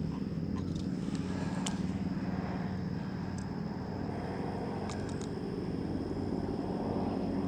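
Steady low engine hum of a running motor vehicle, with a few light metallic clicks from long-nosed pliers working a hook out of a bullhead catfish's mouth.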